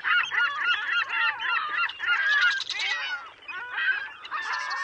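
A flock of birds calling together: many short calls that rise and fall in pitch, overlapping without a break.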